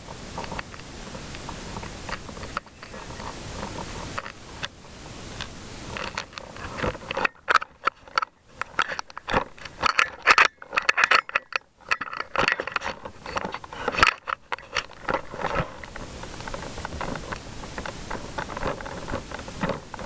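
Handling noise from a helmet camera as it is picked up and rubs against a firefighter's turnout coat: irregular scrapes and knocks with brief muffled gaps in the middle. A steady rushing noise runs before and after.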